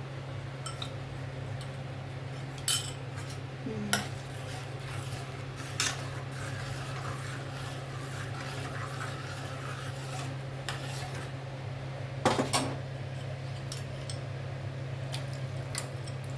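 A spoon knocking and clinking against the soup pot while the soup is stirred: a few sharp clinks, the loudest pair about three quarters of the way through, over a steady low hum.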